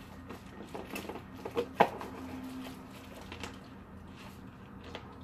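Quiet chewing of a gummy candy, with small clicks and taps from a plastic candy tub being handled. One sharper click comes a little under two seconds in.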